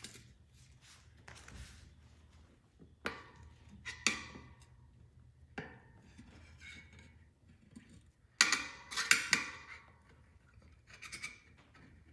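Steel tire spoons levering a tire bead over a motorcycle's spoked front rim: scattered scrapes and metallic clicks, with the loudest cluster of clanks and scraping about eight to nine seconds in.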